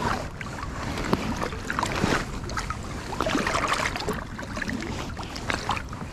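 River water splashing and sloshing against a float tube and waders as they are pushed through shallow water, with scattered small knocks and splashes.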